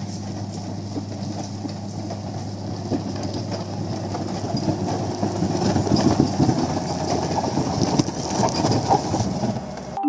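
Komatsu motor grader's diesel engine running steadily as the grader works a dirt road, its blade scraping and pushing loose soil and gravel. The crunching and rumble grow louder in the second half as the machine comes close.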